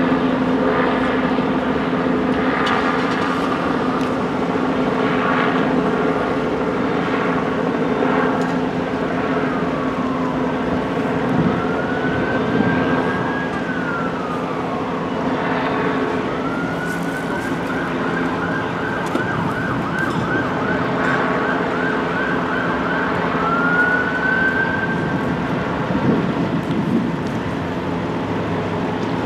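Emergency vehicle siren: a slow rising-and-falling wail about halfway through, then a rapid yelp for several seconds, then another rising wail, over a steady low engine hum and road traffic.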